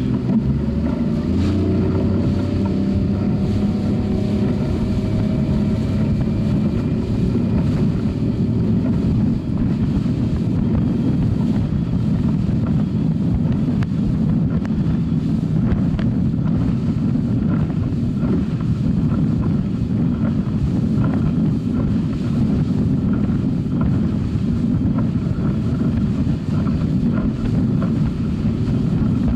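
Suzuki 50 hp outboard motor driving a small boat at speed, its pitch creeping up over the first several seconds and then holding steady. Heavy wind buffets the microphone over the motor and the rushing water.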